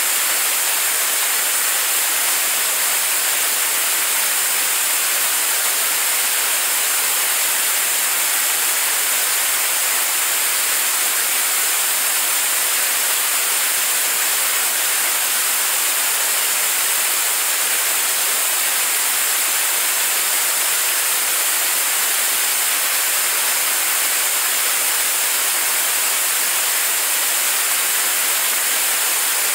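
Staged-combustion liquid rocket engine prototype firing at steady state on a ground test stand, its exhaust plume making a constant, even rushing hiss with little bass and no change in level.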